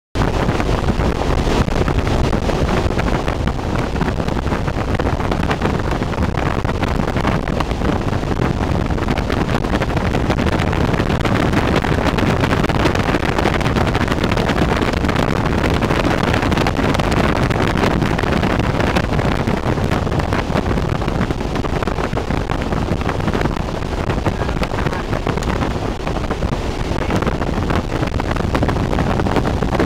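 Subsonic wind tunnel running steadily with a free stream of about 40 mph: a loud, even noise of the fan and airflow, with no breaks.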